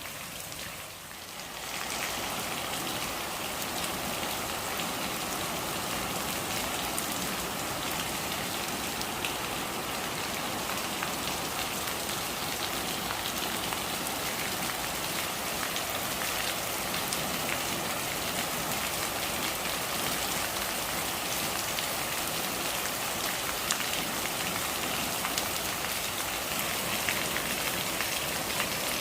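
Steady rain falling, a dense even patter of drops with many small individual drop ticks. It dips briefly about a second in, then runs steady.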